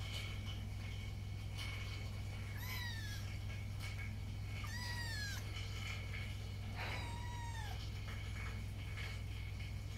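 Kittens mewing: three high, thin mews at about three, five and seven seconds in, each falling in pitch at the end, over a steady low hum.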